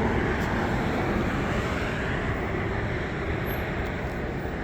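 Steady road traffic noise from cars passing on a busy street, with some wind on the microphone; no sound comes from the crosswalk buttons.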